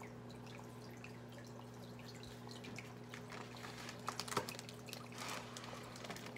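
Hang-on-back aquarium filter running, a steady low hum with water trickling and dripping back into the tank. From about three seconds in, a plastic fish bag floating in the tank is handled and crinkles in short bursts.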